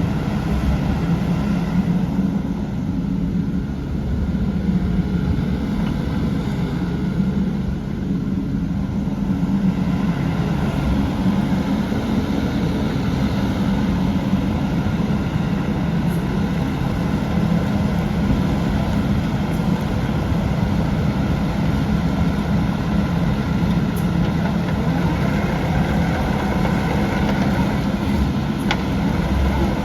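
Diesel engine of a Kubota KX080-3a 8-tonne excavator running steadily.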